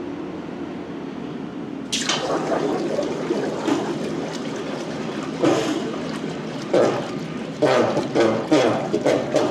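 A red-hot 1045 steel ball quenched in ice-cold water: about two seconds in, a sudden boiling, bubbling hiss starts and goes on in uneven surges over a steady hum.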